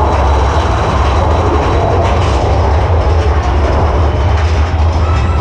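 Mine-train roller coaster cars running along the track, heard from on board: a steady, loud, low rumble with a rattling haze above it and no breaks.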